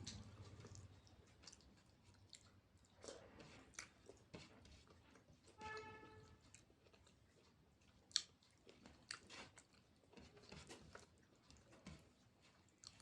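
Close-up chewing of a home-cooked Indian meal, faint and soft, with scattered small mouth clicks. There is a brief pitched tone about halfway through and a single sharp click a little later.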